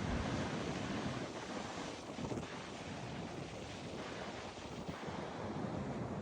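Ocean surf breaking and washing on a beach: a steady rush of waves, a little louder in the first couple of seconds and then easing off.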